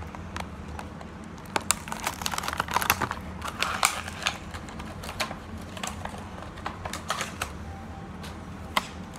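Irregular plastic clicks and crinkling from fingers working open a plastic-windowed Barbie shoe accessory pack, busiest about two to four seconds in.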